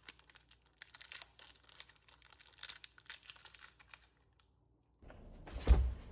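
Plastic granola bar wrapper crinkling as a hand takes the bar off the counter, a run of small crackles lasting about four seconds. After a short pause, background noise comes in and a single heavy thump sounds near the end.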